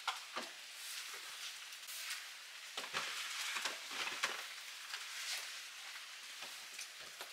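Steady hiss of light rain, with a few soft knocks and thumps as gear is handled and loaded into a car's hatch.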